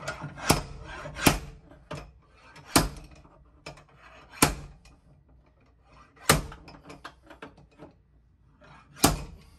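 Heavy slide-hammer dent puller hooked onto pins welded along a creased car door. The weight is driven out against its stop six times, a second or two apart, with lighter knocks between: pulling the dent and crease outward.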